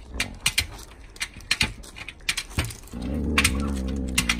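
Sharp clicks and taps of paws and claws on a glass tabletop, then, about three seconds in, an Alaskan malamute's low, drawn-out growling grumble that goes on to the end.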